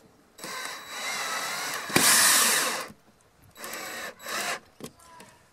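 Power drill driving a screw into a caravan wall: one long run, loudest in its final second, then two short bursts.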